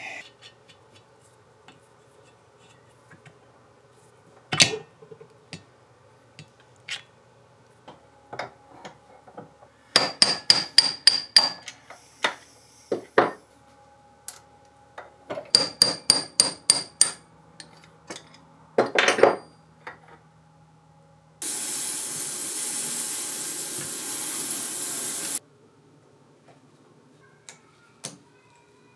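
Hammer strikes on steel machine parts: two quick runs of about eight sharp, ringing blows each, with scattered clinks of metal parts between them. Later a steady rushing noise runs for about four seconds.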